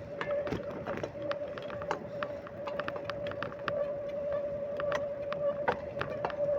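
Bicycle in motion: a steady, slightly wavering whine with irregular clicks and rattles throughout.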